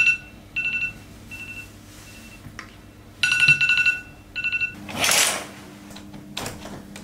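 Smartphone ringing with a repeating electronic tone in short bursts: two longer phrases with fainter, shorter ones between. About five seconds in, a brief rushing swish.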